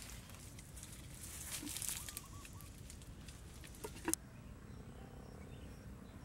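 Outdoor ambience: leaves and twigs rustling, a few short bird chirps, and a single sharp knock about four seconds in. Faint high bird calls repeat after the knock.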